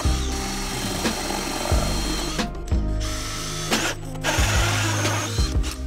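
Cordless drill boring holes through a beadboard wainscoting panel, the bit chewing through the board with short stops about two and a half seconds in and again about four seconds in.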